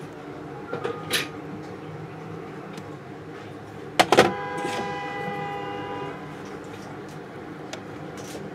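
A light clatter of handling clicks about a second in, then, about four seconds in, a sharp double metal knock that rings on with a clear tone and fades over about two seconds, all over a steady low hum.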